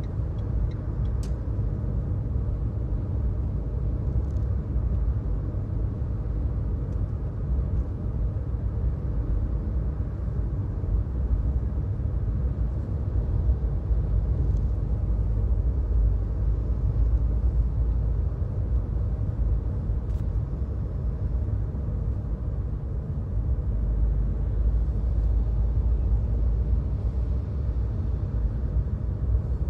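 Steady low rumble of a car driving: engine and tyre noise with no sharp events.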